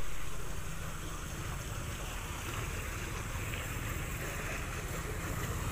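A motor running steadily, a low rumble under wind rushing on the microphone, the rumble growing a little stronger near the end.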